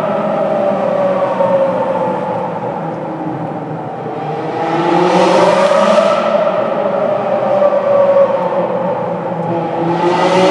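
Ferrari 360's V8 engine revving loudly, its pitch sinking back, then climbing again about four seconds in and once more near the end.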